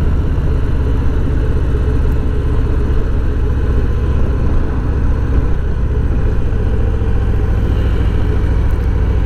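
2020 Harley-Davidson Heritage Softail's V-twin engine running steadily as the motorcycle rides along the road.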